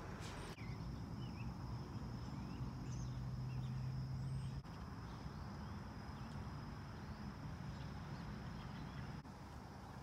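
Outdoor ambience of insects droning steadily at a high pitch, with scattered short bird chirps, over a low hum that stops about four and a half seconds in. The sound changes abruptly a couple of times where shots are cut together.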